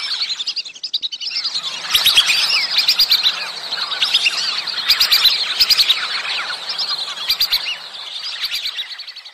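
A flock of whistling ducks calling together as a mating-season call: many overlapping high, thin whistles. They thin out briefly about a second in, then fade away near the end.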